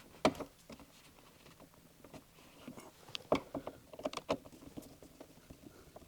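Scattered light clicks, taps and scratches of hands and tools working on car interior trim while sun visors, grab handles and trim pieces are taken off. There is one sharp click near the start and a quick run of clicks about halfway through.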